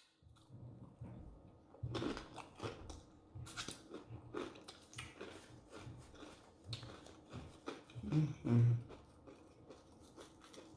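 Close-miked chewing: irregular wet mouth smacks and crunchy bites of food, briefly louder about eight seconds in.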